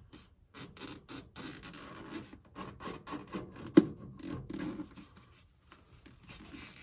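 Razor blade scraping and cutting around the edge of a foam speaker baffle, in a run of short rubbing strokes, with one sharp click nearly four seconds in that is the loudest sound.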